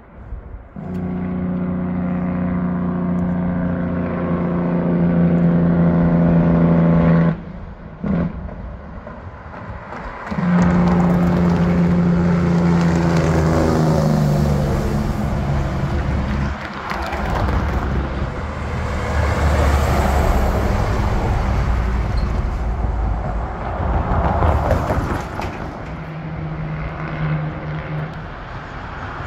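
Semi-truck's diesel engine brake running on a steep downgrade, a steady buzzing drone that cuts out about seven seconds in, comes back about three seconds later and drops in pitch as the truck goes by. It then gives way to a rougher rush of engine and tyre noise from the passing rigs.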